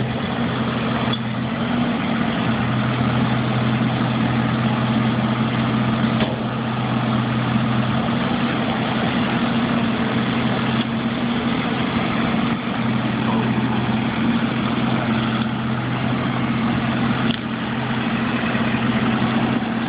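Street sweeper's engine running steadily, a constant deep hum with no change in speed, while its hopper is raised to dump into a dump truck.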